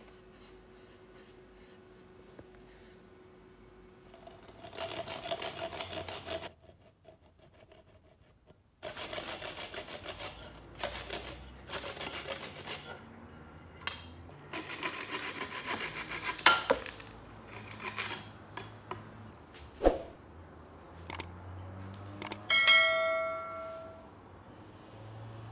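Stretches of scratchy rubbing on the wooden axe handle, broken by several sharp knocks. Near the end the steel axe head clanks down on a tiled surface and rings for about a second.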